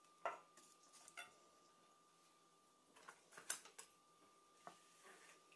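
A few light clicks and knocks of kitchen utensils being handled on a counter, with a cluster of taps around three to four seconds in as chopsticks are picked up. A faint, steady, high tone runs underneath.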